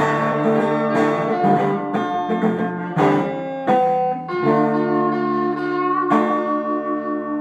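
Guitar playing an instrumental passage: chords struck every second or so and left to ring.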